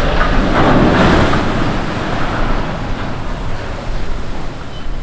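Splashing and surging water as a ship's hull drops sideways into the water in a side launch, loudest about a second in and then easing off, with wind buffeting the microphone.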